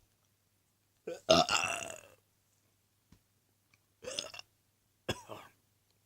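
A man burping: one long, loud burp about a second in, then two shorter burps near the end.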